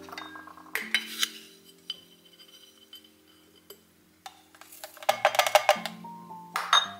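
Background music with held notes, with sharp knocks or clinks about a second in and a run of them from about five to seven seconds.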